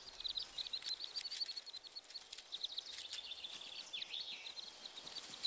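Ducklings peeping: rapid, high, short calls repeated several times a second, over faint outdoor background noise.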